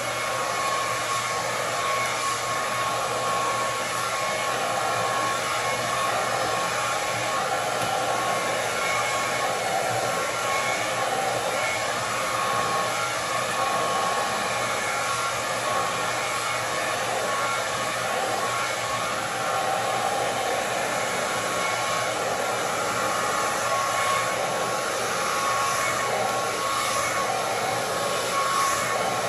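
Handheld hair dryer with a comb attachment running steadily as it blows out natural hair: an even rush of air with a steady high whine.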